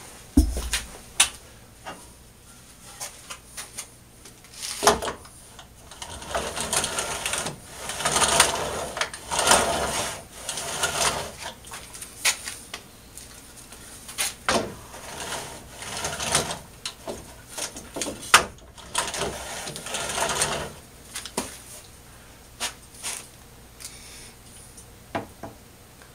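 Wooden lathe carriage on small wheels being pushed back and forth by hand along a wooden lathe bed: stretches of rolling rattle broken by sharp knocks and clicks as it starts, stops and bumps.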